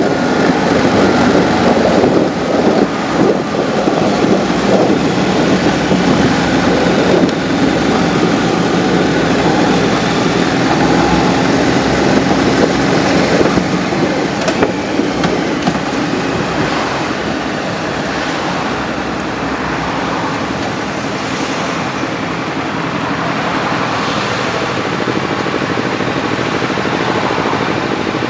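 Wind rushing over a camera mounted behind a motorcycle's windscreen, with the bike's engine running underneath. The noise eases in the second half as the motorcycle slows to a stop.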